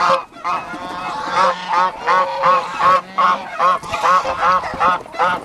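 Domestic geese honking, a fast run of short, arched calls of about three to four a second, several birds overlapping.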